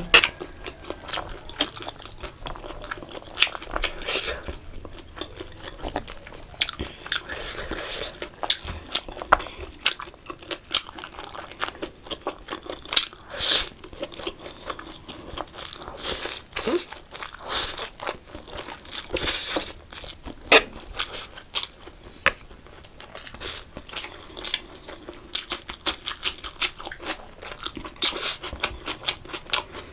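Close-miked eating: chewing and crunching of food, with many small sharp clicks and several louder hissy bursts of about a second each.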